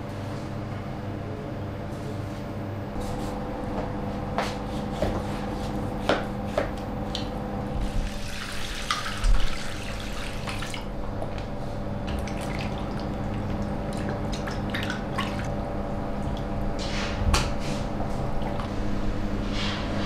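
Water poured from a metal bucket into a steel bowl of raw meat, splashing for about three seconds around the middle. Scattered knocks and clicks of the meat and tools being handled sound over a steady kitchen hum.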